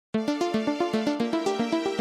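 The backing music of a rap song starting abruptly: a quick, even run of short pitched notes, about seven or eight a second, stepping up and down in a repeating pattern.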